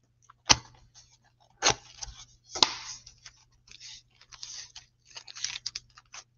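A cardboard trading-card hobby box and its foil packs being handled and set down on a table: three sharp taps in the first three seconds, with rustling and scraping of cardboard and wrappers between and after them.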